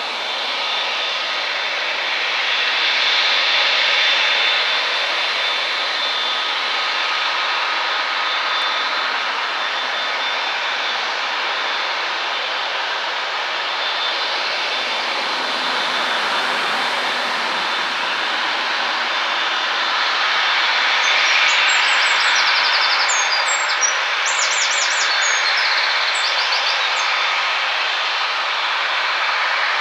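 Boeing 787-8's Rolls-Royce Trent 1000 jet engines running at taxi power as the airliner taxis: a steady rushing sound with high whining tones, swelling slightly a few seconds in and again about two-thirds through.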